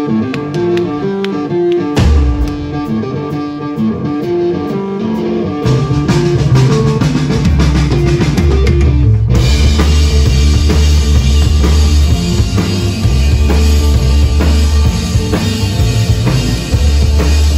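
Live psychedelic stoner rock band playing. A repeating guitar figure is joined by drums and bass about two seconds in and builds, then the full band comes in louder with heavy low bass and cymbals about nine seconds in.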